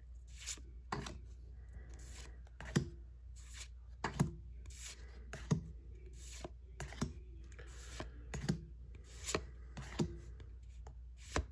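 Pokémon trading cards being slid one by one from the front of a small hand-held stack to the back, each card making a short papery swish or flick, one or two a second at an uneven pace.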